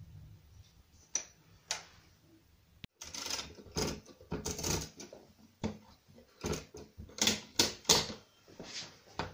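Brunsviga pinwheel mechanical calculator worked by hand: two lone clicks, then from about three seconds in a busy run of metal clicks and rattles as the setting levers are moved and the register-clearing wing nut is turned.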